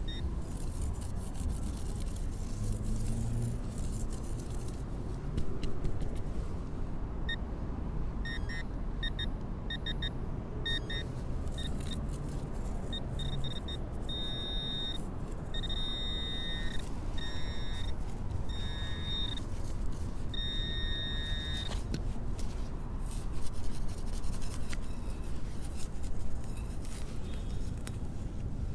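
A handheld metal-detecting pinpointer sounding off over a buried metal target: short, quick beeps that lengthen into steady tones about a second long, stopping for a while and starting again near the end. There are a couple of dull knocks in between.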